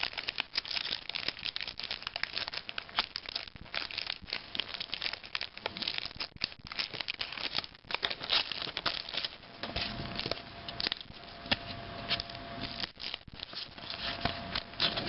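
Trading card pack wrapper crinkling and tearing as it is opened by hand, with the cards being handled, a dense run of quick crackles and rustles.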